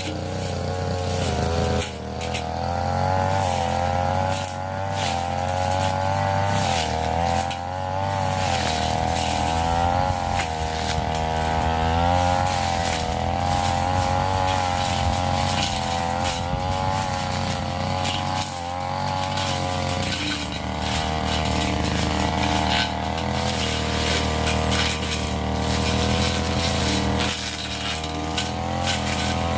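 Petrol brush cutter clearing dense scrub: the engine runs near full throttle, its pitch dipping and recovering as the blade bites into the brush, with scattered sharp ticks of the blade striking stems.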